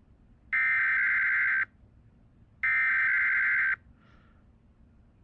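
Two EAS SAME (Specific Area Message Encoding) header data bursts opening an automated weekly Emergency Alert System test, the encoded alert header that tells receivers a message is starting. Each is a harsh, buzzing digital warble about a second long, and they come about a second apart.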